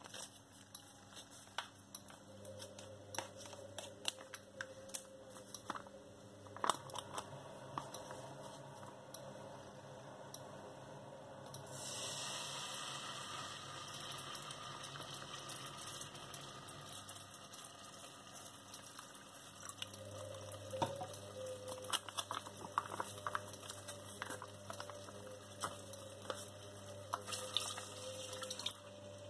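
A plastic sauce pouch crinkling as it is squeezed out into a steel pot, the thick kurma sauce squelching and dripping out. A steady hiss comes in about twelve seconds in and stays under the crinkling.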